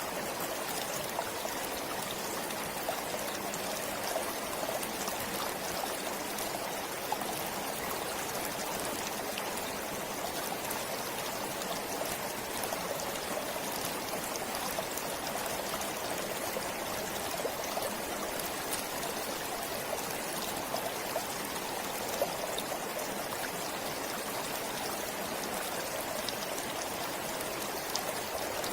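A forest stream flowing steadily: a continuous rush of running water with small splashes and trickles.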